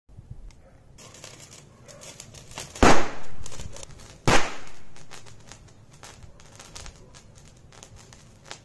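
Two small bidi bomb firecrackers going off, one sharp bang about three seconds in and another about a second and a half later, each trailing off over about a second.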